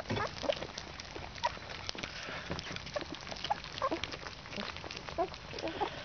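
Two-week-old Alaskan Malamute puppies eating soft food from a plate together: many wet smacking and lapping clicks, with little squeaks and grunts scattered through.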